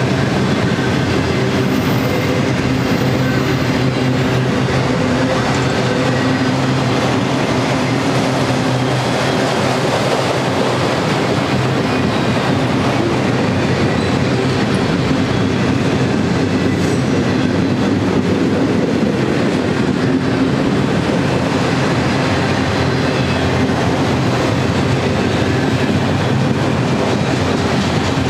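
Enclosed autorack freight cars rolling past in a steady stream: a continuous rumble and rattle of steel wheels on the rails.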